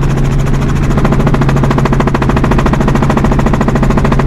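Helicopter in flight heard from inside the cabin: a rapid, even beat of rotor-blade chop over a constant low engine hum.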